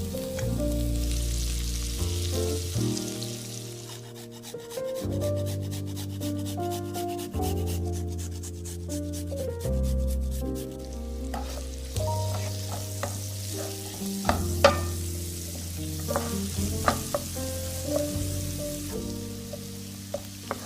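Food frying in a pan while it is stirred, with a sizzling hiss and a few sharp clicks of a utensil against the pan, under background music.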